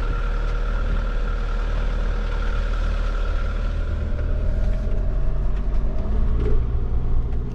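Fiat Ducato-based motorhome driving along a road: steady engine and road rumble, with a faint whine that rises slightly in pitch partway through.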